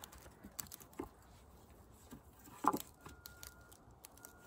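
Light knocks and rustling of cut wooden pieces being handled and fitted together, with one sharper knock a little past halfway.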